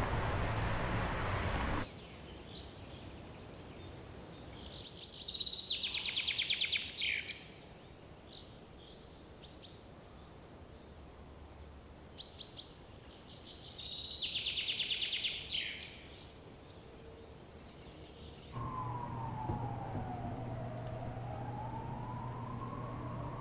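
City noise cuts off about two seconds in, giving way to a wood where a songbird sings a fast trill twice, with a few short chirps between. Near the end an emergency-vehicle siren wails slowly down and up over a low city hum.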